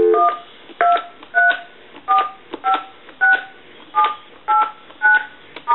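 Touch-tone (DTMF) dialing on an AT&T CL4940 speakerphone: about ten short beeps, roughly two a second, each a different two-note pair with a click from the key press. A held dial tone stops at the first digit.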